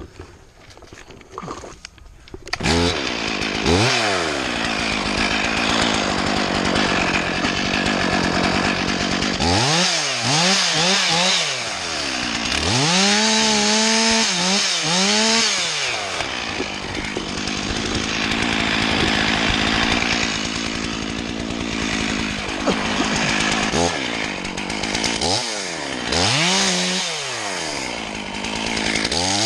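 Chainsaw pull-started off the ground, catching about two and a half seconds in after a few short pulls. It then runs at high revs, dropping back to idle and revving up again several times.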